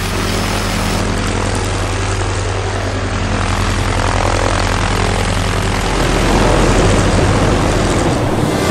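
Single-engine propeller plane's engine running steadily with the propeller turning, a constant low drone that grows louder about six seconds in.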